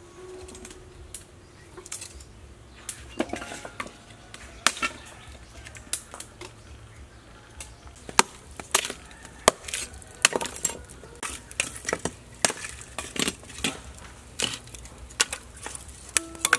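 Chunks of lump charcoal clinking and knocking against each other as they are stacked by hand in a stove. The sound is a long run of sharp, irregular clicks.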